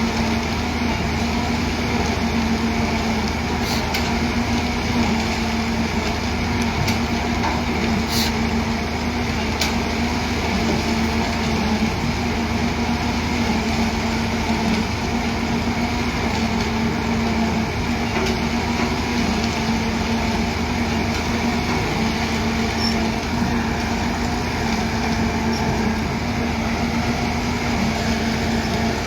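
Heavy diesel machinery running steadily at constant speed, a continuous engine drone with a steady hum.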